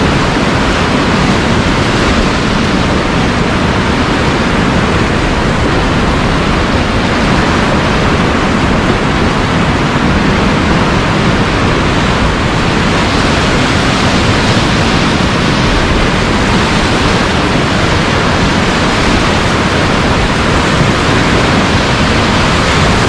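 Whitewater rapids rushing loudly and steadily around a cataraft as it runs through them.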